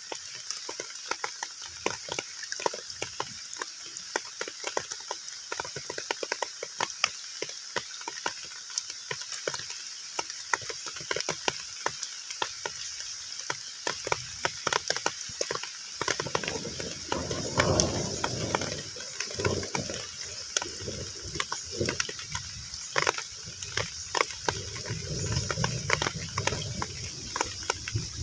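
Heavy rain falling on a pond's surface: a dense, irregular patter of drops hitting the water over a steady hiss. Twice, about halfway through and again near the end, a lower, rougher sound swells up under the rain.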